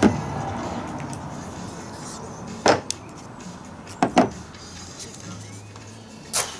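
Steamed wooden strips and spring clamps knocking against a wooden bending form as the strips are clamped in place. There are about five sharp wooden knocks and clicks a second or so apart, two of them in quick succession about two-thirds of the way through.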